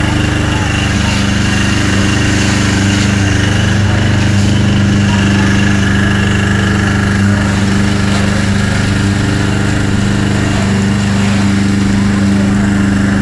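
Firefighting pump engine running steadily at one constant pitch while it feeds a hose jet onto the fire, with people's voices in the background.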